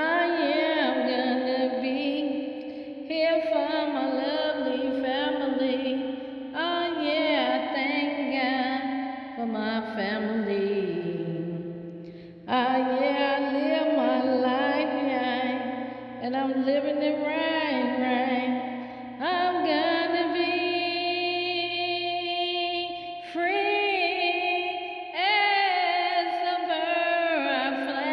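Wordless singing: a voice holds long notes with vibrato and slides between pitches in chant-like phrases, gliding down low about ten seconds in.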